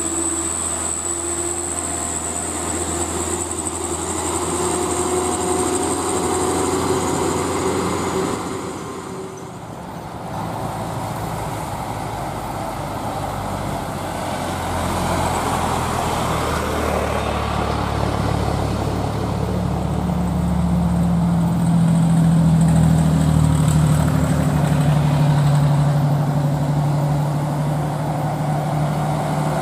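Diesel engines of laden sand dump trucks pulling uphill as they pass close by one after another: a steady engine drone with tyre noise on the road. There is a short lull about nine seconds in, then a deeper engine note builds to its loudest about two-thirds of the way through as the next trucks come near.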